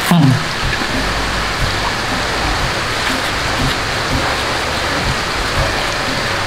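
Steady rain falling, a dense even hiss that holds unchanged throughout. A short low falling vocal sound, like a brief hum, comes right at the start.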